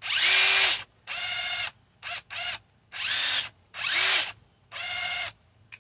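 Ridgid brushless cordless impact wrench run in seven short bursts on a car's lug nuts, each about half a second or less, its motor whine rising in pitch as each burst starts.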